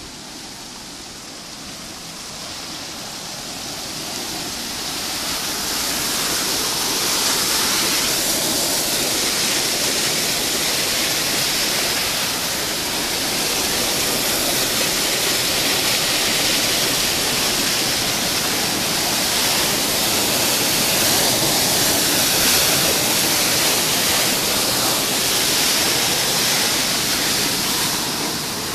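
River water rushing and churning through an open weir sluice gate: a steady rush that grows louder over the first several seconds, then holds.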